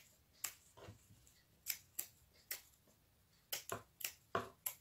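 Scissors snipping through burlap fabric: about ten short snips at an uneven pace, several coming close together near the end.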